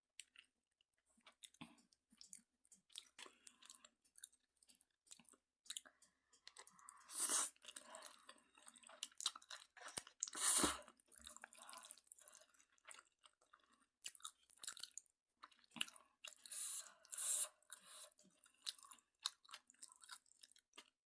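A person chewing Jjapaghetti noodles mixed with buldak sauce, with many small wet mouth clicks and smacks. Two louder, longer noisy sounds come about seven seconds in and about ten and a half seconds in.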